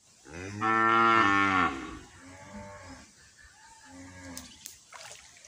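A cow mooing once, a long low call whose pitch drops at its end. Fainter calls follow, and two sharp clicks come about four and a half seconds in.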